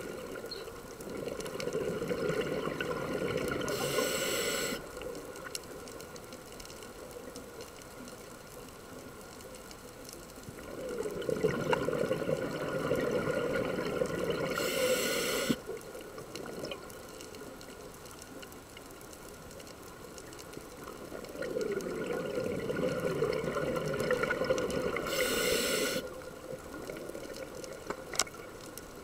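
Scuba diver's breathing through a regulator, heard underwater: three slow breaths about ten seconds apart. Each is a few seconds of rushing air and bubbles ending in a short hiss, with quieter pauses between.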